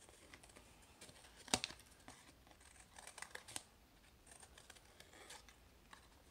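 Scissors snipping through thin cereal-box cardboard: a handful of short, sharp cuts, the loudest about one and a half seconds in.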